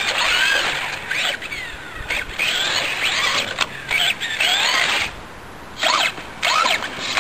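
RC car's small motor and gears whining as the throttle is worked, the pitch sweeping up and down in bursts. It drops away briefly about five seconds in, then comes back with two short rising blips.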